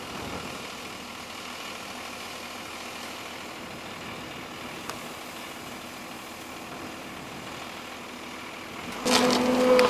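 Volvo excavator's diesel engine running steadily at low revs. About nine seconds in it suddenly gets much louder, with a wavering whine as it takes the load and sharp cracks of roots breaking.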